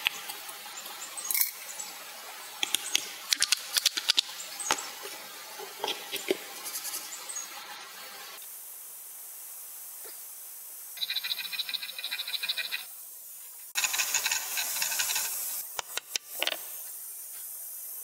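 Hand chisel working a slotted wooden puzzle piece: a run of sharp wooden clicks and knocks. Later come two stretches of quick, even scraping strokes and a few final knocks.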